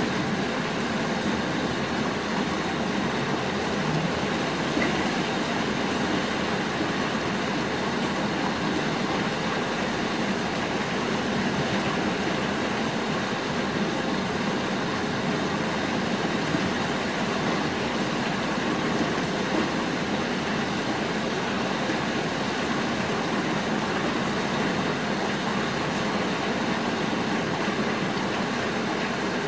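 Steady rain falling on rooftops outside a window, an even, unbroken hiss.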